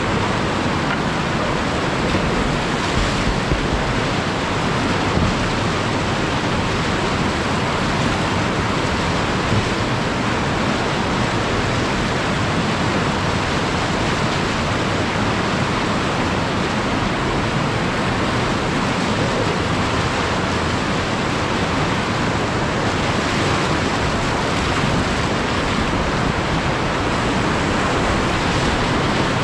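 Whitewater rapids rushing loudly and steadily right around a kayak running them, the churning water close to the microphone.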